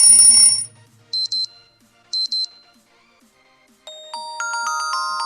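Alarm tones previewed through a Poco M2 smartphone's speaker. A loud steady electronic tone cuts off about half a second in, and two short double beeps follow a second apart. Then a bell-like chiming melody starts near four seconds in.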